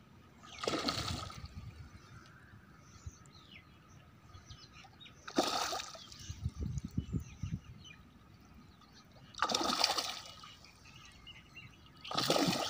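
A hooked Indian major carp thrashing at the surface of the water near the bank as it is drawn in on a handline, splashing four times a few seconds apart.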